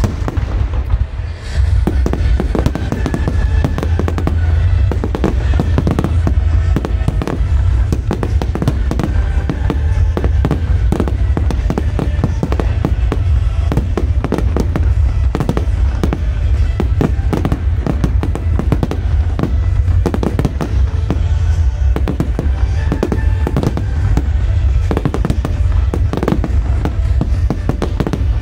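Dense barrage of fireworks: shells bursting and crackling with many bangs in quick succession, over a deep rumble, with show music playing underneath.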